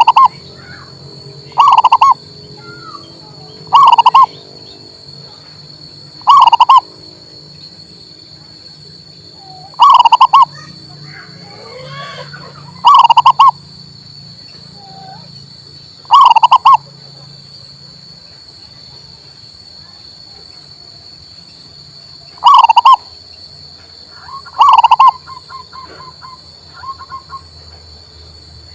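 Male zebra dove (perkutut) cooing: about nine short, very loud coos, one every two to three seconds, with a longer pause midway. A faint steady high whine runs underneath.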